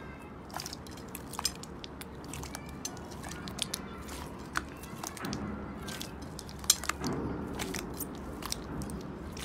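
Hands squeezing and kneading a large lump of clear, bubble-filled slime: wet squishing with many irregular sharp clicks and pops, one loud pop about two-thirds of the way through.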